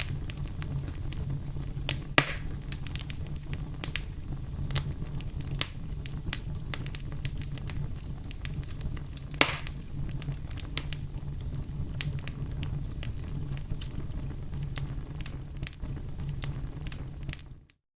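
Campfire crackling: frequent small snaps and ticks over a steady low rumble, with two louder pops about 2 seconds and 9 seconds in. The sound cuts off abruptly just before the end.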